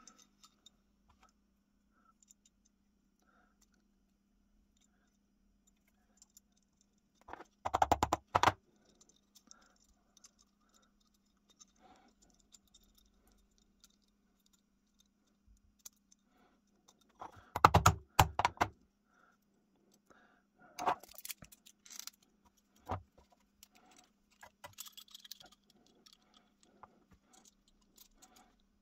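Small steel lock parts of an antique percussion pistol and a pair of locking pliers clicking and clinking as the lock is reassembled by hand, with two louder bursts of metallic clatter about eight and eighteen seconds in. A faint steady hum runs underneath.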